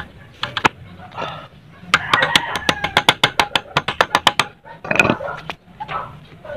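Wrench on a motorcycle engine's oil drain plug clicking rapidly, about nine clicks a second for two and a half seconds, as the plug is loosened. A single knock follows about five seconds in.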